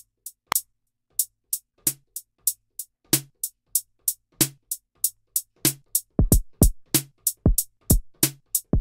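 Maschine drum kit played live on its pads: a drum loop of hi-hats about three a second with snare hits, and kick drum coming in about six seconds in.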